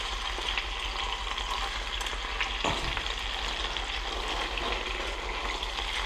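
Bone-in chicken thighs sizzling steadily in olive oil in a skillet, browning over medium-high heat as they are turned, with a light knock about two and a half seconds in.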